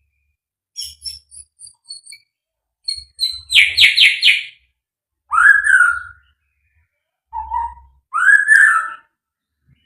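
White-rumped shama (murai batu) singing in separate phrases: a few short high chirps, then a quick rattling run of notes, then two loud whistles that rise and fall, with a lower short note between them.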